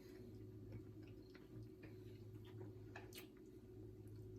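Near silence: a steady low hum with faint scattered clicks.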